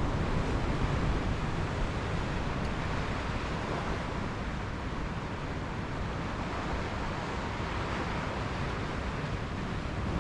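Sea surf washing against the shore, with wind buffeting the microphone as a steady rushing noise and a low rumble.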